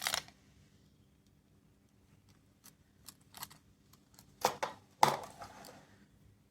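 A few scattered clicks and short scrapes from a small plastic capsule toy being handled, the loudest a pair of clatters near the end, with quiet stretches between.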